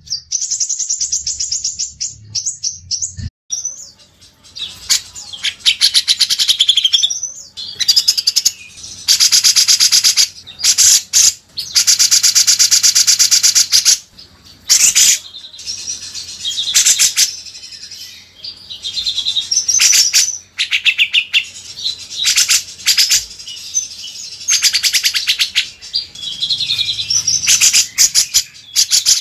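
Songbirds singing fast, high trills and chattering phrases in bursts of one to several seconds, with a long unbroken trill a little after the middle.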